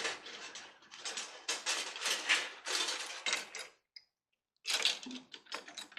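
Irregular clicks, knocks and rubbing from handling a wire stripping machine and coax cable as the wire is worked through it. The sound cuts out completely for under a second about four seconds in.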